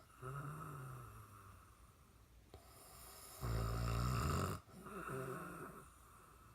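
A man snoring in his sleep: a soft, buzzing outbreath near the start, one loud rattling snore a little past halfway, then another softer outbreath after it.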